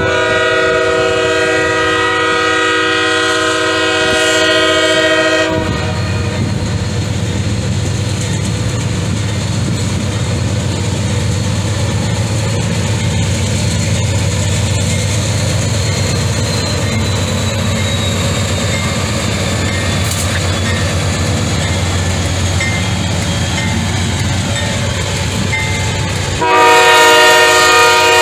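Diesel freight locomotive air horn sounding one long steady chord, cutting off about five seconds in. The low rumble of the passing locomotive and the rolling freight cars follows, and the horn sounds again near the end.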